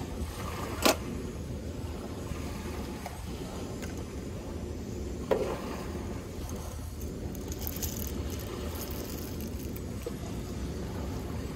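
Hand coffee grinder being handled, with a sharp click about a second in and another a little after five seconds, then whole coffee beans rattling into the grinder's burr opening as they are poured from a glass jar. A steady low rumble runs underneath.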